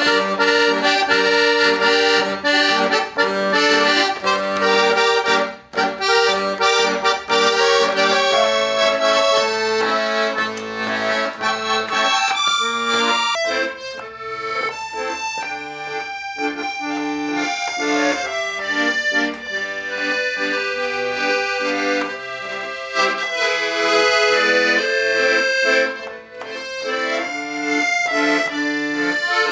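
Accordion playing a tune, a melody over sustained lower chords, with short breaks about six seconds in and again near the end.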